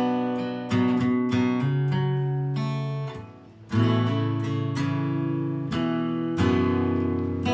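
Acoustic guitar music: chords strummed and plucked, with a short break about three seconds in before the strumming picks up again.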